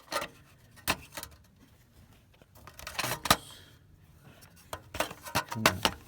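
Scattered light metallic clicks and clinks, a few near the start, then two clusters about three and five seconds in, the loudest around the middle.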